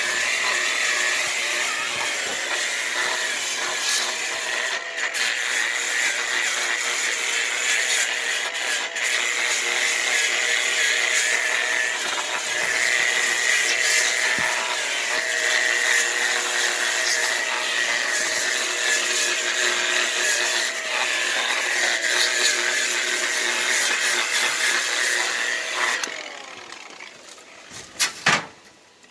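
Ryobi variable-speed right-angle power tool spinning a rotary brush against cedar logs, stripping the wood with a steady, loud whine. It winds down and stops shortly before the end, followed by a couple of sharp knocks.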